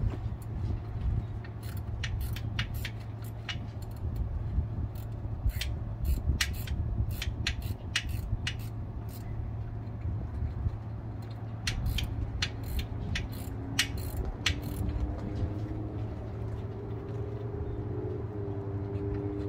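A hand ratchet clicking in short irregular runs while bell-housing bolts on a bus transmission are loosened, over a steady low hum.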